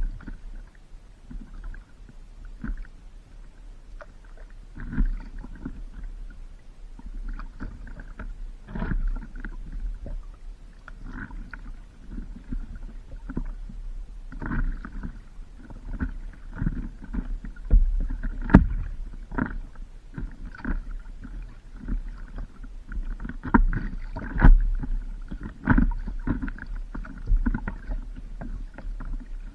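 Paddling on open water: irregular paddle strokes and water splashing, every second or so, over a constant low rumble on the microphone.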